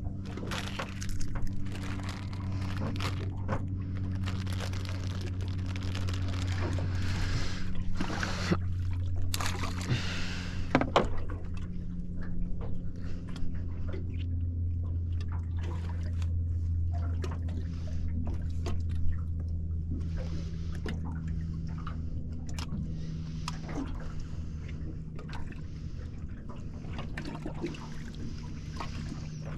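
A boat's motor hums steadily while water sloshes and splashes against the hull, with scattered knocks.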